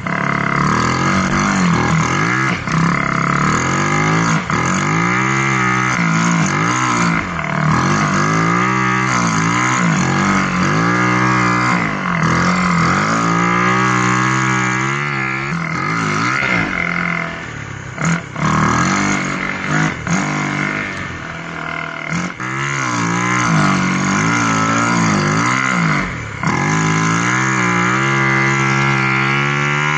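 A snow bike's engine (a dirt bike on a single-ski track conversion) revving up and down again and again as it works through deep powder, the pitch rising and falling every second or two.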